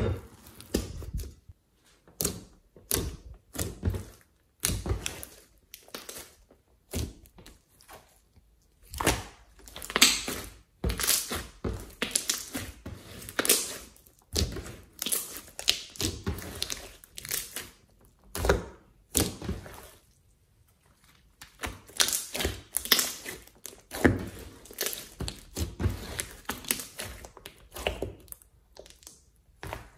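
Glossy slime being squeezed, pressed and stretched by hand, giving bursts of sticky clicks and pops with short pauses between them.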